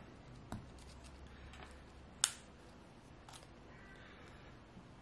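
Faint, sparse small clicks from a smartphone being handled as its SIM card tray is pushed back in, the sharpest about two seconds in.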